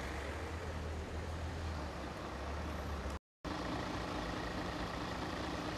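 A motor vehicle engine running steadily, a low even hum under outdoor background noise. The sound cuts out for a moment about three seconds in.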